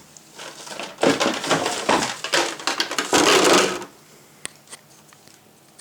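Packaging being handled: about three seconds of loud crinkling and rustling, then two light clicks.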